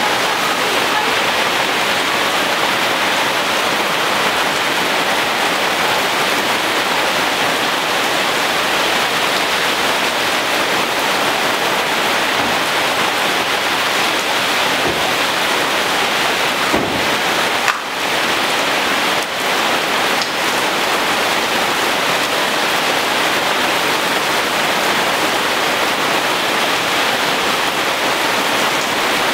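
Heavy rain pouring steadily onto leaves, a dense even hiss that dips briefly twice about two-thirds of the way through.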